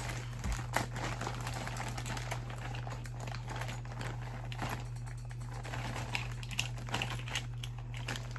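Rummaging through a bag of small plastic fidget toys: irregular light clicks and plastic rustling, over a steady low hum.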